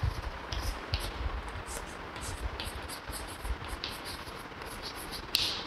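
Chalk writing on a chalkboard: a string of short, separate scratchy strokes as letters are written.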